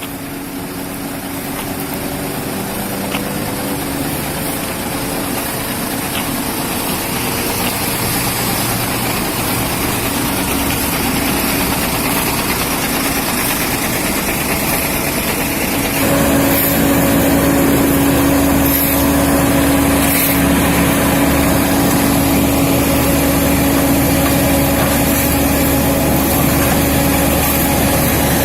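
Diesel engines of heavy road-construction machinery running steadily, growing louder, then stepping up sharply about halfway through into a louder, steady hum.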